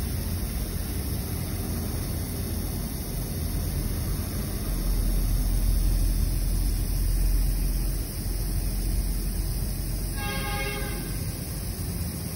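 Aerosol hair spray can held open in one continuous spray, a steady hiss, during a test of how long a 420 mL can lasts. A short pitched toot sounds once about ten seconds in.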